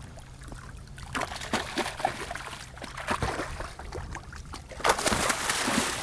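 Water splashing and sloshing at a boat's side as a hooked king mackerel thrashes at the surface while it is released by hand, growing suddenly louder about five seconds in.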